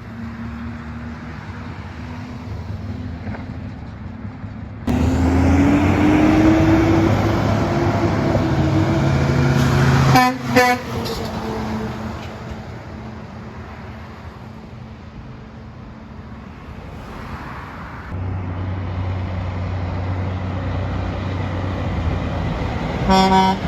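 Heavy trucks' diesel engines going past the roadside. About five seconds in, one comes in loudly with its engine note rising as it pulls away. There is a short horn blast around halfway, then a second truck's engine comes in and a horn sounds near the end.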